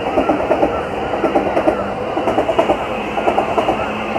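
Sped-up recording of railway noise from a passing train: a dense, continuous run of rapid, uneven pulses.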